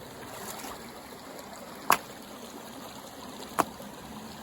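Shallow mountain creek running and trickling over stones, with two sharp knocks of stone on stone about a second and a half apart as rocks are set down to build a dam.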